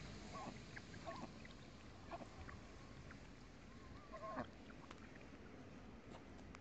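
Faint, scattered peeping of mallard ducklings, a handful of short calls with a louder one a little past the middle, over a steady low hiss. The audio is played in reverse.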